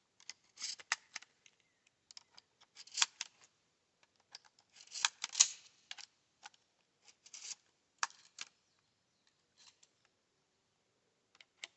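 Stevens 320 pump-action shotgun being handled and loaded: sharp metallic clicks and clacks in about five short clusters.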